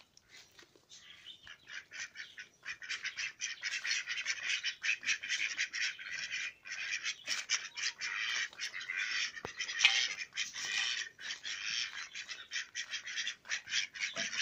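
Domestic ducks quacking in a group: a rapid, overlapping chatter of short calls that gets much louder a couple of seconds in and keeps going.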